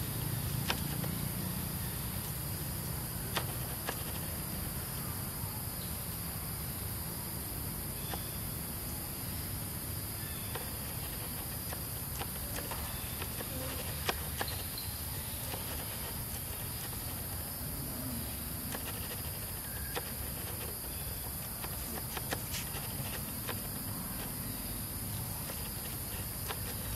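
Steady high-pitched drone of insects over a low rumble, with scattered light clicks and rustles from the dry leaf litter.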